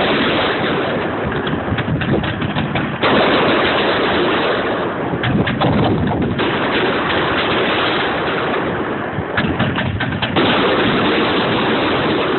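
Fireworks going off: a dense, continuous crackle of many small bangs, with a fresh volley starting abruptly three times.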